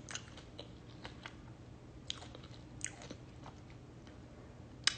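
A person chewing a mouthful of chicken wing close to the microphone: faint scattered clicks and small crunches, with a sharper click near the end.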